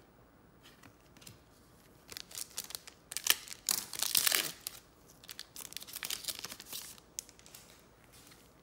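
Trading-card pack wrapper being torn open and crinkled in crackly bursts, starting about two seconds in and loudest near the middle, then stopping about seven seconds in.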